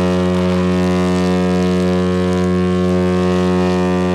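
Mein Schiff 6 cruise ship's horn sounding one long, steady, low-pitched blast: a farewell signal as the ship leaves port.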